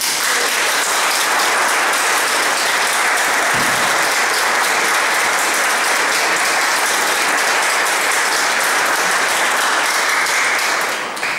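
Audience applauding: a dense, steady round of clapping that starts suddenly and dies away near the end.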